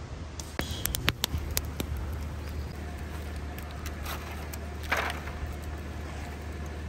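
Hands working in water in a disposable aluminium foil tray, with a few sharp clicks and taps near the start and a short splash about five seconds in, over a steady low background rumble.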